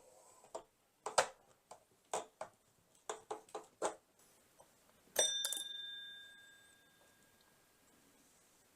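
Metal parts clicking and knocking as the chainsaw's sprocket is worked loose by hand, then one sharp metallic clink that rings like a small bell and fades over about two seconds.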